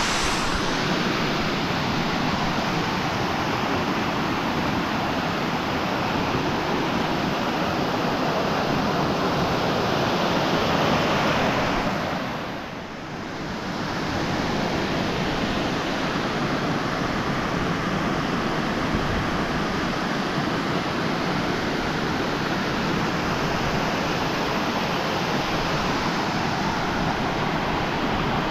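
Mountain stream rushing in a steady loud wash of water, briefly quieter about halfway through.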